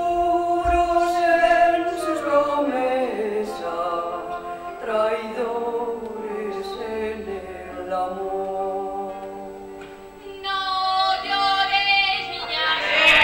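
A woman singing a slow song in long held notes that slide from one pitch to the next, with no other instrument clearly heard.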